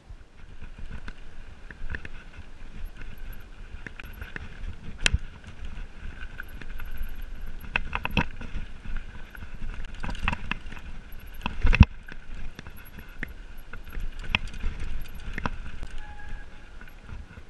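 Mountain bike rolling down a rocky dirt trail: tyres rumbling over dirt and stones with the bike rattling and sharp knocks as it hits rocks. It starts rolling just after the start, with the loudest knock about twelve seconds in.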